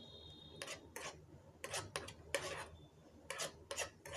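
Spoon scraping and stirring in a small frying pan as chopped almonds, cashews and pistachios roast in ghee: short scraping strokes, two or three a second, unevenly spaced.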